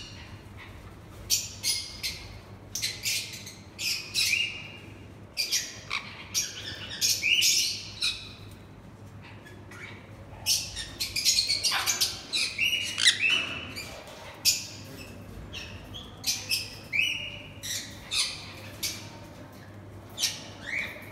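A pair of sun conures calling with short, high-pitched squawks and chirps, one after another in quick runs. The calls come thickest and loudest in the middle.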